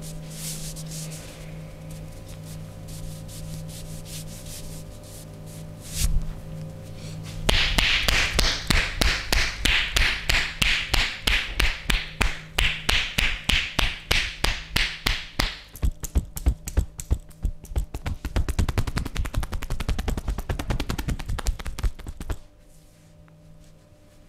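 Percussion massage by hand: quick, rhythmic slaps or chops on a person's body. They start about seven seconds in, speed up in the last part and cut off suddenly near the end. Before that there is a steady low hum and a single sharp knock.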